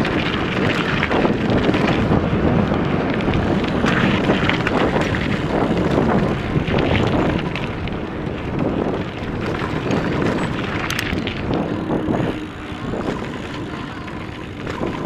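Wind buffeting the microphone of a helmet camera on a moving mountain bike, mixed with tyres crunching over a gravel dirt trail and the bike rattling over bumps. It eases a little near the end.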